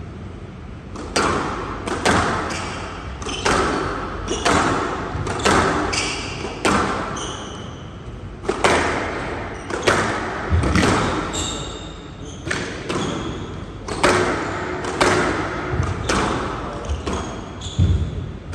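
A squash rally in a glass-walled court: the ball cracks off rackets and walls about every half second to one second, each strike echoing in the hall. Short high squeaks of court shoes on the floor come between the strikes. The rally starts about a second in and runs until just before the end.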